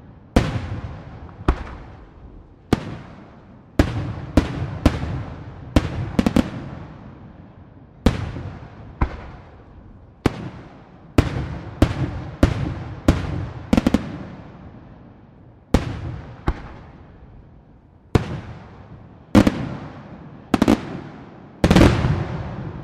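Aerial firework shells bursting overhead in an irregular series of sharp bangs, often less than a second apart, each followed by a long rolling echo. The heaviest bangs come near the end.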